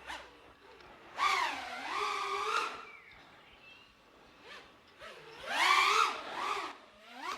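A 5-inch FPV racing drone's brushless motors whining in two throttle bursts, about a second in and again around five and a half seconds, the pitch rising and falling as the throttle changes.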